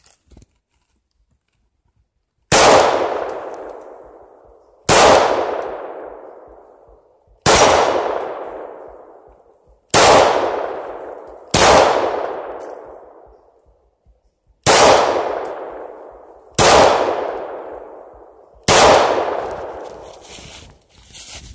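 Eight shots from a Glock 19X 9mm pistol at a slow, deliberate pace, each hit answered by an AR500 steel pig target clanging and ringing out over about two seconds. The first shot comes a couple of seconds in, the others roughly every two to three seconds.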